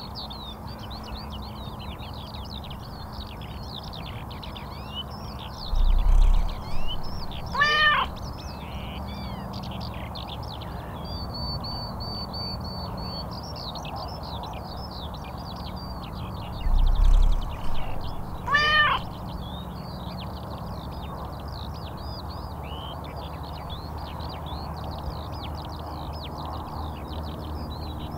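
Many small birds chirping and twittering, with a cat meowing twice, about eleven seconds apart. Each meow comes just after a loud low thud.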